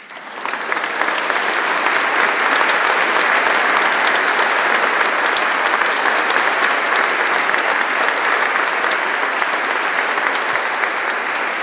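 Audience applause that breaks out suddenly and builds within about a second to a full, steady level of many hands clapping.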